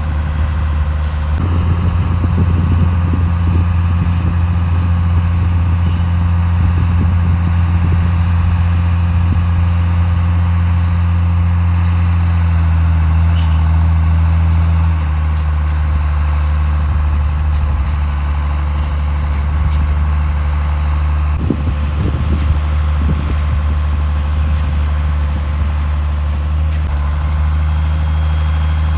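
Concrete mixer truck's diesel engine running steadily; its low note drops slightly about halfway through, with a brief rougher rumble around two-thirds of the way in.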